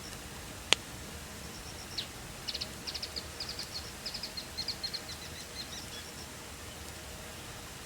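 Wood campfire burning with a steady low hiss and one sharp, loud crackling pop about a second in. From about two seconds in, a bird twitters in a quick run of high chirps for about four seconds.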